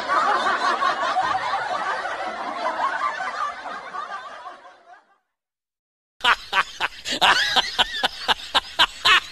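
Group laughter, like a laugh track, that fades out about five seconds in. After a second of silence comes a quick run of short sharp clicks with a few squeaky high notes.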